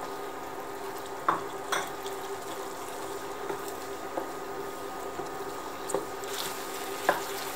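Wooden spatula stirring minced pork, tomato and water simmering in a nonstick frying pan, with a few short knocks of the spatula against the pan, over a steady hum.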